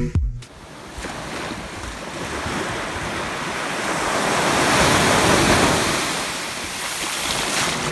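Small ocean waves breaking and washing up a sandy beach: a rushing wash that swells to its loudest about five seconds in, then eases off.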